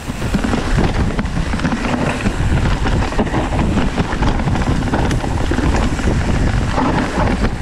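Hardtail mountain bike descending a leaf-covered dirt trail: steady tyre rumble and rattling of the bike over bumps, with wind noise on the microphone.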